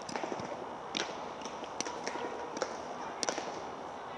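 Camogie hurleys striking balls off the ground: about ten sharp, irregular knocks, a couple in quick pairs, over steady background noise.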